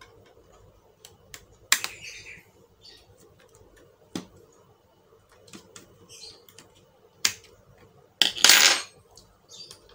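Small clicks and light taps of an old CMOS coin-cell battery being handled and worked loose in an opened laptop, with a louder rasp lasting under a second about eight seconds in.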